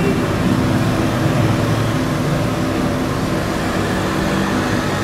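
Steady low mechanical rumble and hum.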